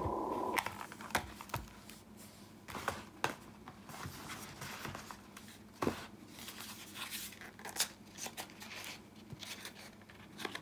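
Cardboard KeyForge deck boxes and cards being handled and set down on a cloth-covered table: scattered light taps, scrapes and rustles. A steady muffled rushing noise runs for the first half second, then cuts off.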